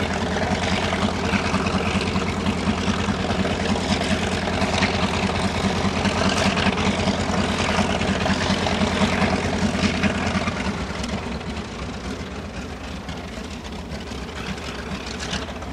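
Grumman TBM-3E Avenger's Wright R-2600 fourteen-cylinder radial engine running on the ground with a fast, steady pulsing beat. About ten seconds in it turns lower and quieter.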